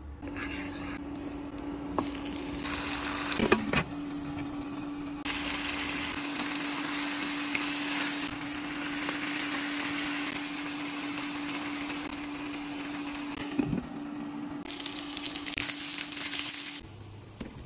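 Chicken pieces sizzling as they fry in oil in a hot pan, with a wooden spatula scraping and knocking against the pan a few times as they are stirred. A steady hum runs underneath.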